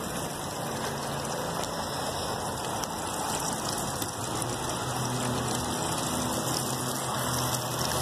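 Steady rushing and splashing of water from a garden hose running through a small model water wheel's chute and over the wheel.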